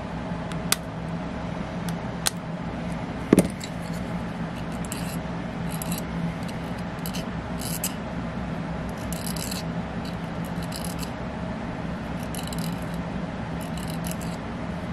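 Short, irregular scraping strokes of a hand tool cutting out a piece of the flange, with a few sharp clicks and one louder tap a little over three seconds in, over a steady low hum.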